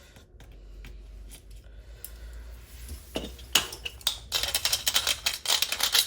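Small metal repair tools clicking, scraping and rattling on a workbench. It starts with a faint low hum, and about three and a half seconds in comes a quick run of sharp clicks that lasts to the end.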